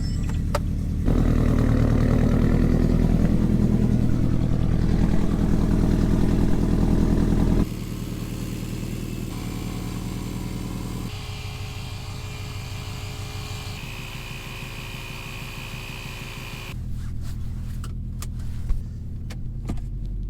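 Subaru BRZ flat-four engine running just after a cold start, loud for the first several seconds and then dropping suddenly to a quieter, steady idle. A series of sharp clicks or knocks comes near the end.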